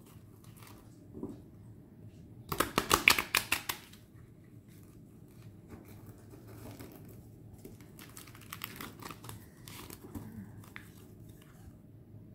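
A deck of oracle cards being shuffled by hand: a quick run of card flicks and clicks about two and a half seconds in, then quieter rustling and tapping of the cards.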